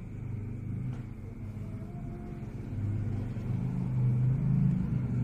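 Rinnai REU-5CFC gas water heater running with a steady low rumble and hum, growing louder near the end.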